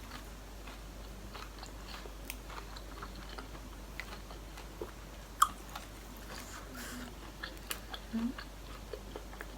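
A person chewing and biting food close to the microphone: soft wet mouth sounds and small scattered clicks, with one sharp click about five and a half seconds in.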